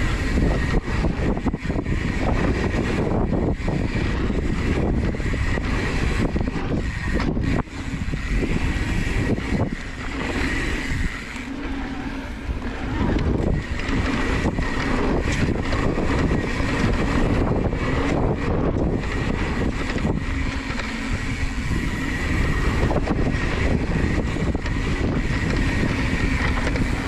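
Mountain bike riding down a dirt trail: a steady rush of wind rumble on the microphone, with tyre noise and frequent short rattles and knocks over bumps.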